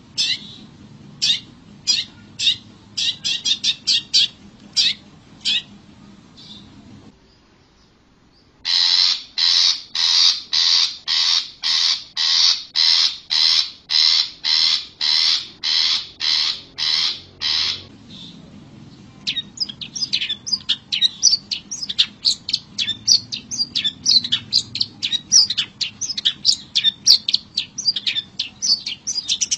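Long-tailed shrike calling: scattered sharp notes at first, then a steady series of loud, harsh calls about two a second for some nine seconds, then a fast, varied chattering song.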